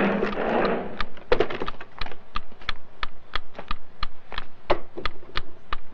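Office clatter: a brief rush of noise, then a rapid, irregular series of sharp clicks and taps, about three to four a second.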